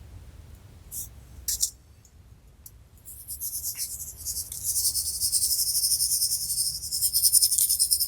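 Two short crisp clicks about a second in. From about three seconds in comes a dense, fast, high-pitched crackling rattle of many tiny ticks, which grows louder and keeps going to near the end.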